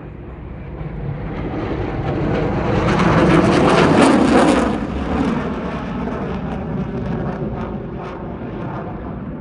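An aircraft flying past during an airshow display: its engine noise builds, is loudest about four seconds in, then eases off.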